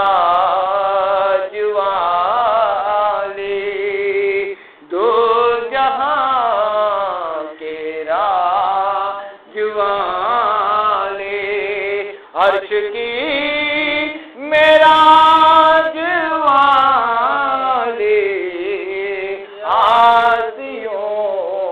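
A solo voice singing an Urdu devotional salam in long, ornamented melismatic phrases with short breaths between them, with no instrumental beat.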